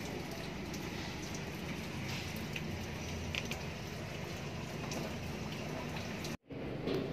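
Used engine oil draining from the generator's diesel engine sump through a drain hose into a plastic container, a steady pouring, splashing flow. The sound cuts out abruptly for a moment about six seconds in.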